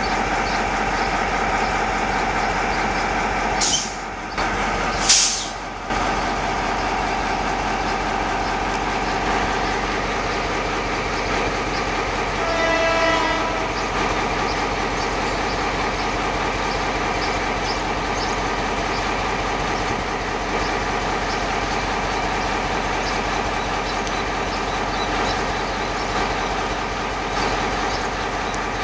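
An EMD G22 diesel-electric locomotive running steadily as it hauls a work train, its engine a constant drone, with a single horn blast of about a second and a half midway. Two short hisses come a few seconds in.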